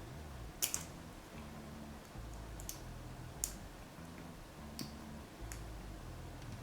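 A handful of light, sharp metallic clicks and taps, about five spread irregularly, the loudest about a second in: small tin-plate model railway track pieces and their new copper contact being handled and fitted together.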